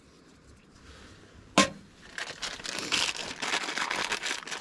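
A single sharp click about a second and a half in, then plastic packaging crinkling and rustling as it is handled to get the new fuel filter out.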